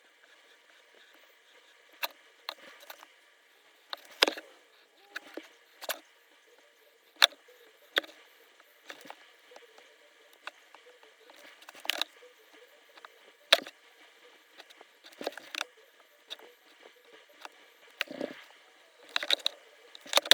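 Hot stippling iron pressed again and again into the Glock 30SF's polymer grip, with irregular short clicks and crackles as the plastic melts and bubbles under the tip.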